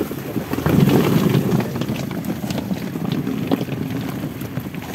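Wind buffeting the microphone on an open boat, with a stronger gust about a second in and scattered knocks and clatter of gear on the boat.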